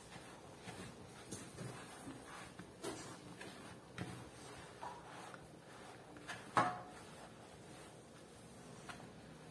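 Wooden spoon stirring crumbly sour-cassava-starch dough in a plastic bowl: faint scraping with irregular knocks of the spoon against the bowl, the loudest about two-thirds of the way through.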